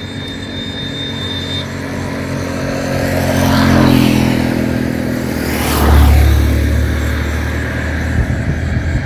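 Road traffic passing close by: one motor vehicle swells past about four seconds in, and a second, deeper and louder one passes about six seconds in, each then fading away.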